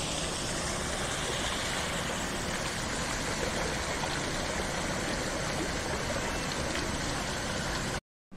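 Water rushing steadily down a wooden flume that feeds a water mill. It breaks off abruptly near the end.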